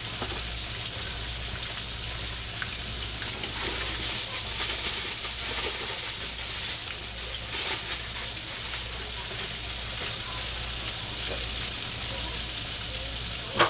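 Breaded chicken fillets deep-frying in hot oil in a cast-iron skillet: a steady sizzling hiss with crackling that grows louder for a few seconds from about four seconds in, then settles. A single sharp click near the end.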